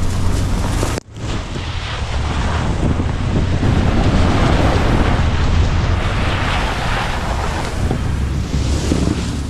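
Ford pickup truck driving in four-wheel drive over snow, its tyres churning through the snow under the engine's low rumble, with heavy wind noise on the microphone. The sound drops out briefly about a second in, then carries on.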